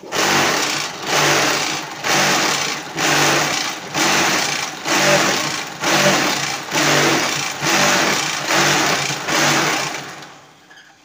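The two electric vibrator motors of a concrete block press run together, one on the tamper head and one under the mould. They shake the mould full of block mix with a loud buzzing rattle that swells and fades about once a second, compacting the mix, then cut off near the end.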